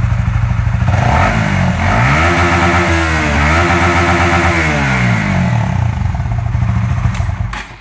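Honda Winner 150 single-cylinder engine running through an aftermarket Z1000-style muffler with a car-type resonator chamber, set up for a deep, warm note. It idles, is revved up about a second in, held high with a brief dip, then drops back to idle near the end.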